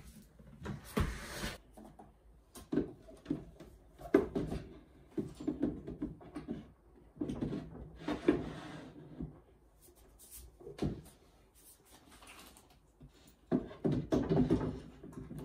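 Drawers of a small white flat-pack cabinet being slid in and out and handled, with irregular knocks and scrapes of the furniture parts, busiest near the end.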